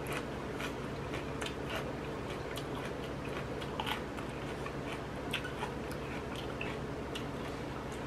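A person chewing a spicy instant-noodle and squid salad eaten with romaine lettuce, with irregular small crunches and wet mouth clicks, over a steady low hum.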